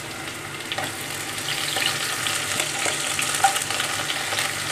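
Chopped onion and garlic sizzling in hot oil with a bay leaf, stirred in the pan, while the tempering (baghar) for a curry fries. The sizzle grows a little louder over the first couple of seconds.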